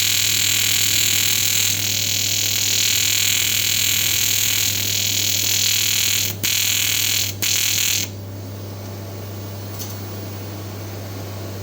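TIG welding arc hissing and buzzing steadily, briefly cutting out twice, then stopping about eight seconds in, leaving a steady low hum.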